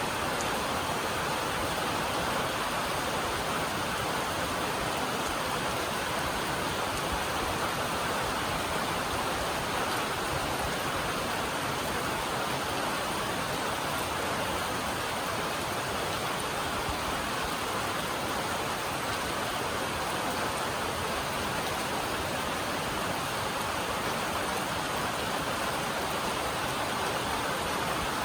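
Steady rain on a metal roof, a dense even patter with no breaks.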